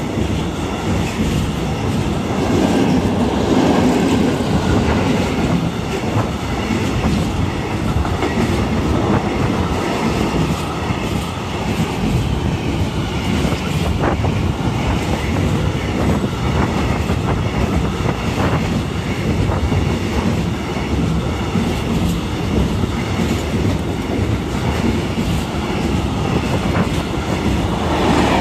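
Container freight train wagons rolling past close by: a steady rumble of steel wheels on the rails, with occasional clicks over rail joints.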